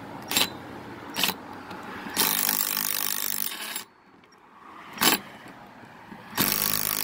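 Power drill running twice, each run lasting about two seconds, driving lag bolts to fasten a gate-latch striker into wood. A few sharp clicks of hardware being handled come before the first run.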